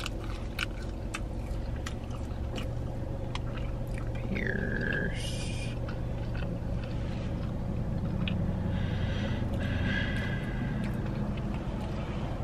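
Chewing of fast food with small mouth clicks, over a steady low hum inside a car. There is a brief falling squeak about four and a half seconds in.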